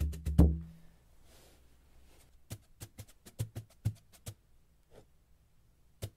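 Hand drumming with a tipper and brush: a few loud strikes with a low booming tone at the start, a soft brush swish in a quiet gap, then lighter, sharp wood-like taps spaced out through the middle, stopping short of the end.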